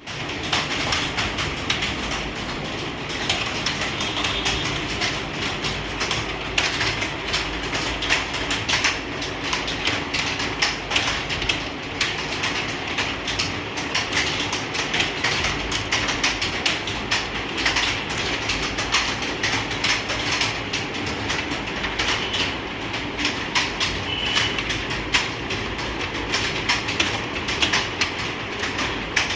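Computer keyboard typing: rapid, continuous keystrokes clicking irregularly throughout, as in a timed typing test.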